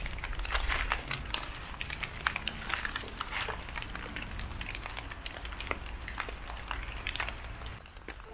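Footsteps on brick rubble and debris: irregular crunching and crackling clicks over a steady low rumble.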